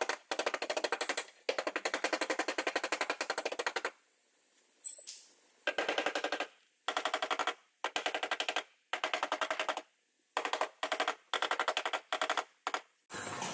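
Air-powered shop tool rattling out rapid, evenly spaced blows in repeated bursts: a couple of long runs of one to two and a half seconds, then a string of short stabs. A steady noise takes over just before the end.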